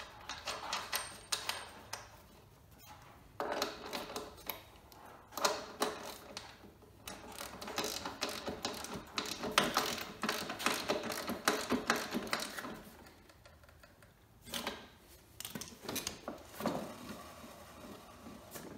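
Small metal parts clinking, then runs of rapid clicking as the end washer and fastener are fitted and tightened on a lawn mower's rear wheel axle.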